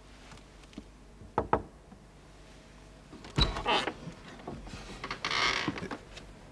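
Two quick knocks on a wooden plank door, then about two seconds later a latch clacks and the door scrapes open.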